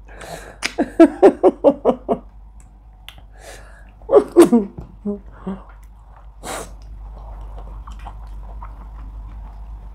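Laughter in a quick run of short 'ha-ha' pulses about a second in, with another brief laugh around four seconds. One sharp, short burst near six and a half seconds, then faint chewing.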